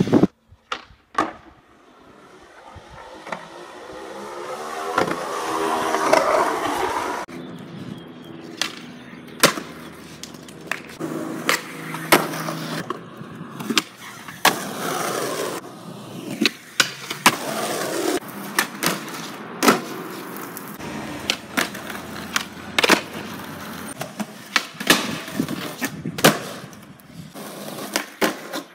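Skateboard wheels rolling on concrete and asphalt, punctuated by many sharp cracks of the board's tail popping and the board slapping down on landings. A long roll swells over the first few seconds and then cuts off abruptly.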